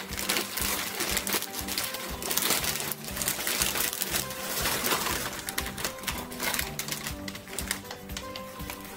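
Frozen egg noodles pouring from a plastic bag into a slow cooker: a dense rattling patter of many small clicks that thins out near the end. Background music plays under it.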